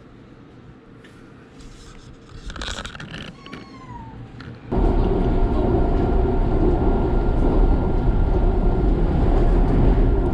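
A cat meows in the first few seconds. About halfway through, a loud, steady rushing noise with a constant faint whine starts abruptly and becomes the loudest sound.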